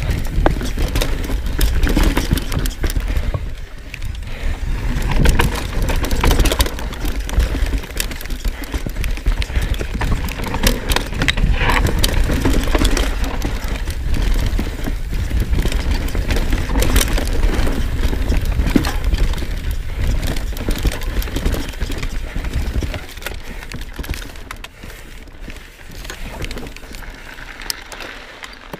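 Knolly Fugitive mountain bike descending dirt singletrack at speed: tyres rolling over dirt and roots, with frequent rattles and knocks from the bike over the bumps. It turns quieter a little after two-thirds of the way through, as the bike rolls onto a smoother gravel road.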